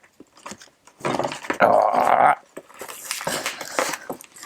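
A dog-like vocal sound about a second in, then rustling and crackling of plastic packaging as a toy fireman's axe is pulled free of it.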